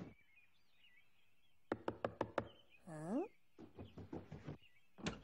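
Knocking on a front door in a cartoon: a quick run of knocks, a short falling-pitch sound, then a second run of lighter taps and one sharp knock near the end. Faint bird chirps sit behind it.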